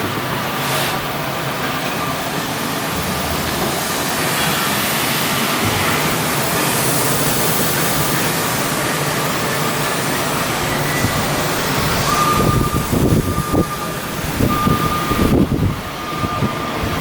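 Steady, loud machinery noise. About two-thirds of the way through, a steady high whine starts, with fast, irregular rattling and knocking.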